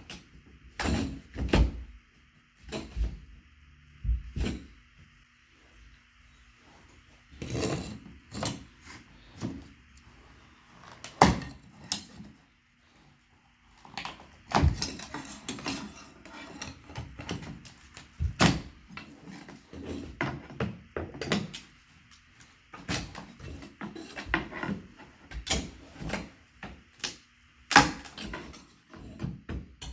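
Wooden baseboard trim being pried off a drywall wall with a crowbar: irregular knocks, cracks and scrapes of wood and metal, with sharper loud cracks about a third of the way in and near the end.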